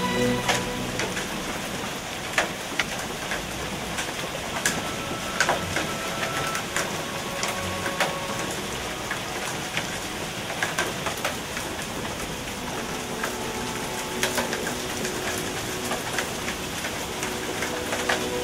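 Heavy hail and rain falling: a steady hiss of downpour with frequent sharp, irregular knocks of individual hailstones striking.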